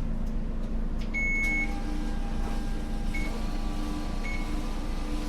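Bus fare box and change machine working as the fare is fed back in by hand: a high electronic beep about a second in, two short beeps later, and a steady machine whirr with a rhythmic pulse, over the low hum of the idling bus.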